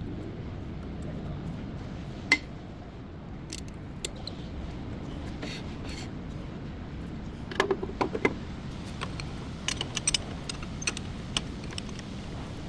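Scattered light metallic clinks and taps over a steady low background hum: a single sharp clink a couple of seconds in, a quick cluster about halfway through, and more clinks near the end.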